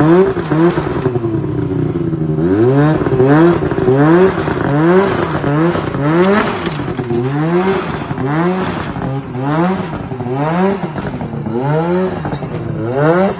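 Ski-Doo Rev 600 HO two-stroke snowmobile engine revved in repeated short throttle blips, a bit more than one a second, each a quick rise and fall in pitch, as the sled is coaxed up a loading ramp.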